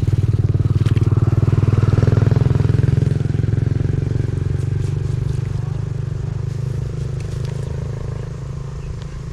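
A small engine running steadily, loudest about two seconds in, then slowly fading away.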